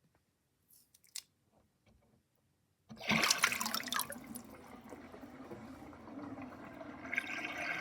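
A few faint clicks, then about three seconds in water suddenly starts running into a kitchen sink drain and gurgling down it, settling to a steady flow that grows louder near the end.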